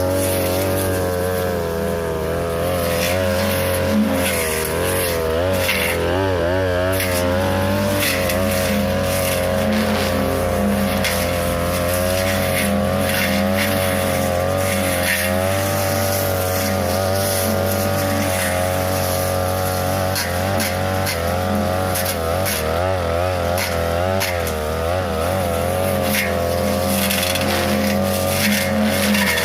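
42cc two-stroke brush cutter with a metal blade running at high revs, its pitch wavering in places as the blade cuts through tall grass and woody brush.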